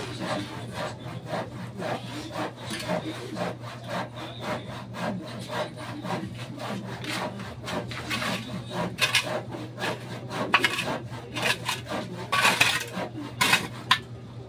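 Repeated rasping, scraping strokes of a long-handled hand tool worked by hand, irregular in pace and louder near the end.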